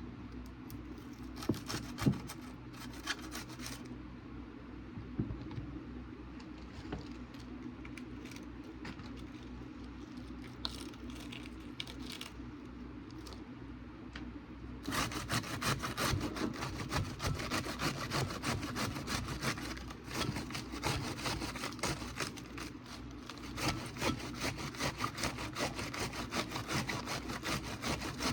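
Lettuce being shredded on a hand cheese grater: rasping strokes, scattered at first, then quick and steady from about halfway through.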